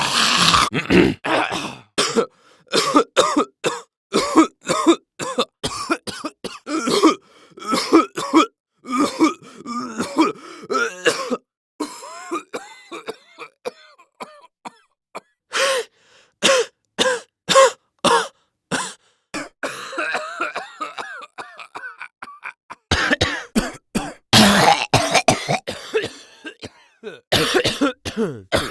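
A person coughing over and over: separate coughing sound effects, single coughs and short fits, one after another with brief pauses between them, mixed with some throat clearing.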